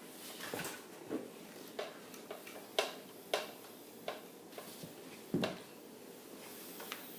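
Light, scattered clicks and knocks of hard objects being handled, about eight in all, the loudest a little under halfway and again near the end.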